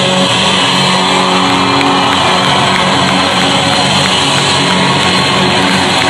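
Live rock band playing loud music at a concert, heard from the crowd through the venue's sound system.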